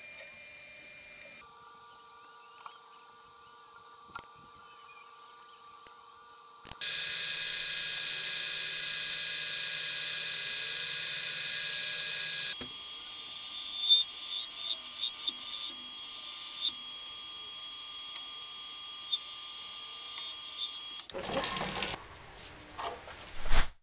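Metal lathe running while a cutting tool turns a metal hammer head: a steady machine hum with a high-pitched cutting hiss, changing abruptly several times. Near the end the machining stops and there are a few knocks and clatters of the part being handled at the chuck.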